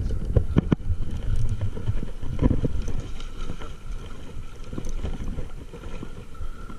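Steady rushing of river water with wind buffeting the microphone, and a few sharp clicks in the first second.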